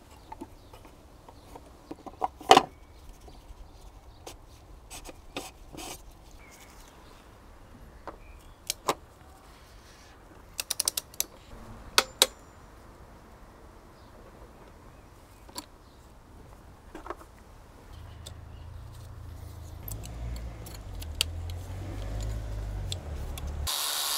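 Hand tools clicking and knocking on the plastic oil filter cap of a 2.0-litre diesel engine as it is screwed down and torqued to 25 Nm with a torque wrench: a quick run of ratchet clicks just before eleven seconds and a sharp click about a second later. A low rumble builds from about eighteen seconds, ending in a short loud noisy burst near the end.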